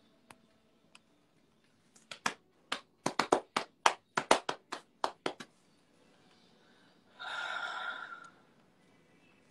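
One person clapping by hand, about fifteen sharp claps over three and a half seconds. Near the end comes a short breathy sound lasting about a second.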